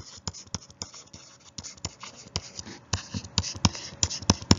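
Clicking and tapping at a computer: a string of irregular, sharp clicks, several a second, with the two loudest near the end.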